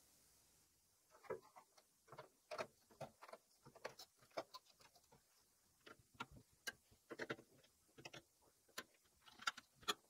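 Light, irregular clicks and taps of a motherboard being seated in a PC case and its small mounting screws being handled and turned by hand.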